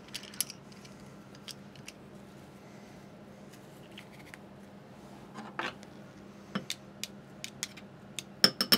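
Stainless steel garlic press being loaded and squeezed, giving scattered sharp metal clicks from its hinge and handles. Near the end comes a quick run of louder clinks as a teaspoon scrapes the pressed garlic off the press.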